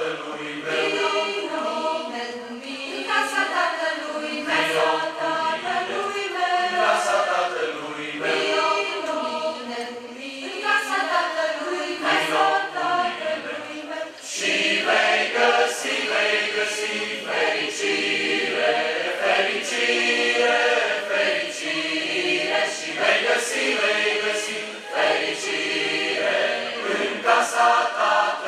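Large mixed choir of men and women singing a hymn in Romanian, with a short dip about halfway through before the voices come in fuller.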